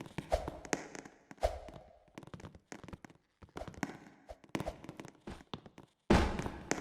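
Irregular clicks and knocks in quick succession, broken by short silent gaps, with a few heavier thumps; the loudest thump comes near the end.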